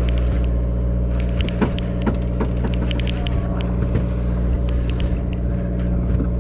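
Boat engine running with a steady low drone, with scattered sharp clicks and knocks from tackle and gear handled on deck.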